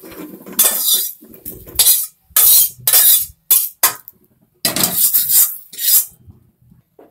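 Metal spatula scraping and clanking against a metal kadai as fried jackfruit pieces are tipped out into a steel bowl, then scraping the emptied pan. A run of short, sharp scrapes and knocks with a short pause midway; they stop about a second before the end.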